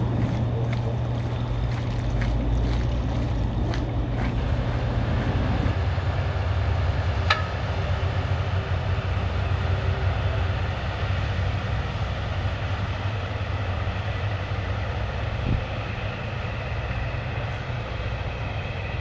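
A small log-boom tugboat's diesel engine running steadily, its note shifting about six seconds in as the boat works the booms. A single sharp click sounds about seven seconds in.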